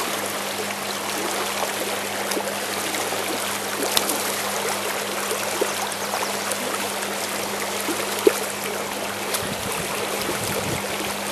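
Shallow, fast river water rushing steadily over stones, with a few faint clicks.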